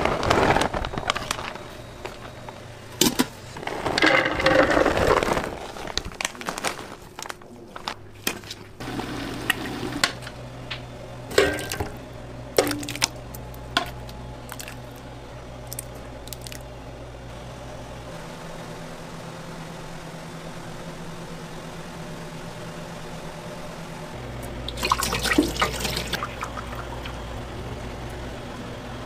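Commercial kitchen sounds: liquid sloshing and pouring, with sharp clicks of metal utensils, over a steady machine hum. A louder burst of noise comes near the end.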